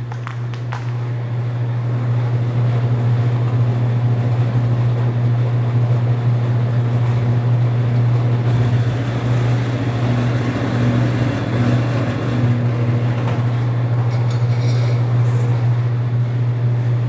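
BWS-80 HD wire stripping machine running with a steady low hum as 1/4-inch wire is fed through its rollers and slitting blades.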